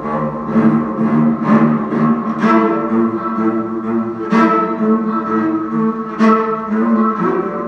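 Live solo cello played with the bow, sustained low notes with sharp accented strokes about every two seconds.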